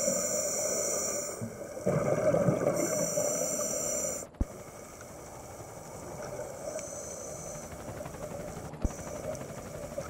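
A scuba diver breathing through a regulator underwater: two long bubbly exhalations in the first four seconds, then quieter, with a soft inhale hiss about seven seconds in. There are two sharp clicks, about four and a half and nine seconds in.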